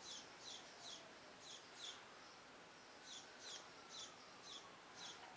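Faint background of a small bird chirping: short high chirps repeated about every half second, pausing briefly a couple of seconds in. Behind them runs a faint, slowly falling drone.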